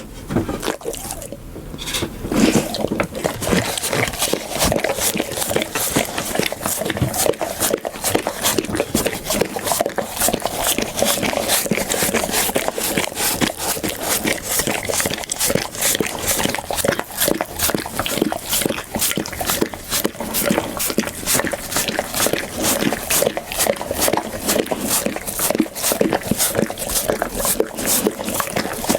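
Pit bull eating noisily, with wet, smacking mouth sounds repeating a few times a second in a steady rhythm.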